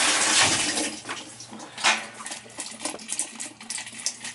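Water rushing through the newly replaced washing-machine supply valve, cutting off under a second in. Then light scattered clicks and knocks, one sharper knock about two seconds in.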